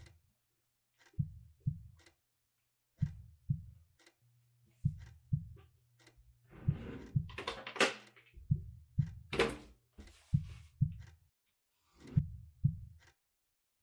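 Heartbeat sound effect: a slow double thump, low and dull, repeating steadily about every two seconds, with a faint low hum under it and a couple of breathy rushes near the middle.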